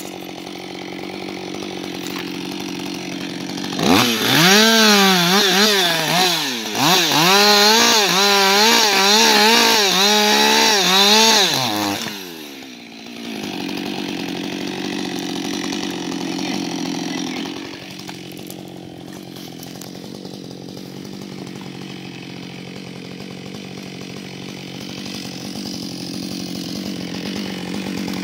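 Husqvarna 560 XP two-stroke chainsaw idling, then run at high revs for about eight seconds with its pitch rising and falling over and over, before it drops back to a steady idle.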